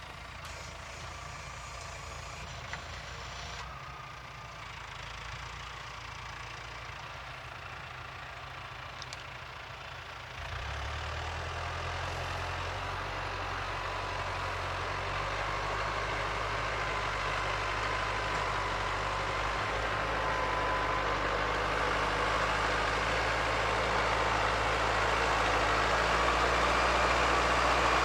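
Tractor engine running steadily while plowing a field. About ten seconds in its low drone grows stronger, and it keeps getting louder as it comes closer.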